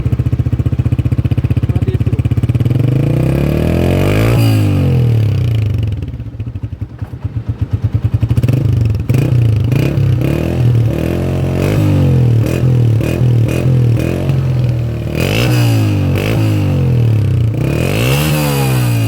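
Exhaust of a warmed-up Honda CG 125 Classic's single-cylinder four-stroke engine, idling steadily and then revved. One rev rises and falls about four seconds in, a run of quick short throttle blips starts about nine seconds in, and a few more revs come near the end.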